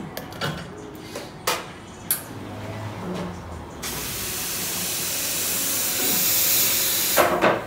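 A few knocks as a portafilter is locked into an espresso machine's group head, then the machine's steam wand hissing loudly and steadily for about three and a half seconds, swelling slightly before it cuts off near the end.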